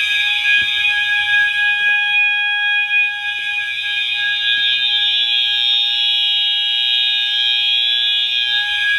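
Several fire alarm horns sounding together in a steady, unbroken alarm after a manual pull station has been pulled. The mix is a steady low tone from a System Sensor MA horn set to 800 Hz under harsher, higher horn tones.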